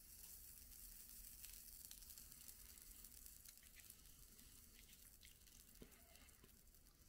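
Faint sizzling and crackling of flux boiling as a soldering iron melts solder onto a model railway rail joint.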